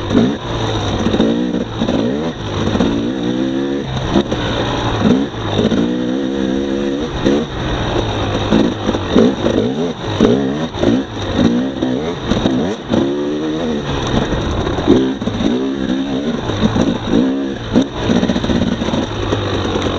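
2018 Husqvarna TX300's two-stroke single-cylinder engine revving up and down under changing throttle while the dirt bike is ridden, its pitch rising and falling every second or two.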